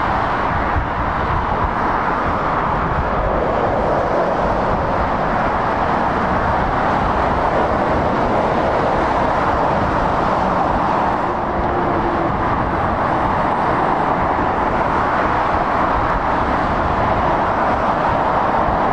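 Steady motorway traffic noise: the tyres and diesel engines of lorries and cars passing continuously, blending into one even rushing sound.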